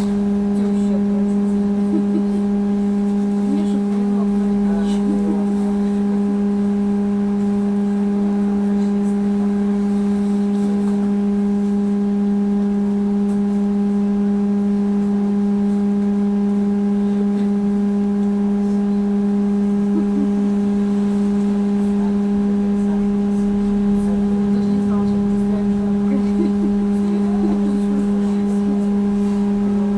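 Trolleybus standing still, its electrical equipment giving a steady low hum with several higher overtones.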